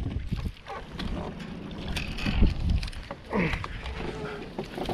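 Wind rumbling on the microphone, with scattered knocks and water sounds as a hooked bass is fought right beside a fishing boat.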